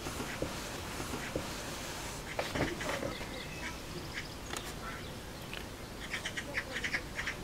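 Eurasian magpies giving harsh chattering calls while squabbling at their nest, building into a fast rattling chatter near the end.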